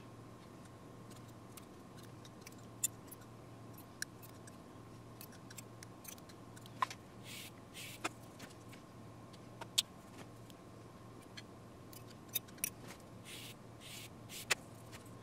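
Light clicks and taps of a wooden saxophone mouthpiece and thin steel feeler gauges being handled on a granite surface plate, with a few brief strokes of the mouthpiece on abrasive paper in the middle and near the end, over a steady low hum.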